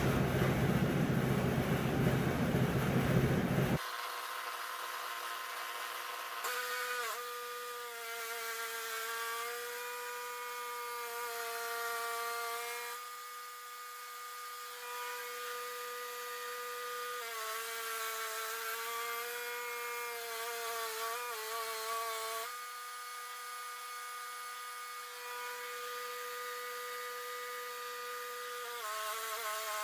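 Wood-Mizer LT10 bandsaw mill running and cutting a black walnut log, a steady whine that dips briefly in pitch several times. A louder, rougher noise fills the first few seconds and cuts off suddenly.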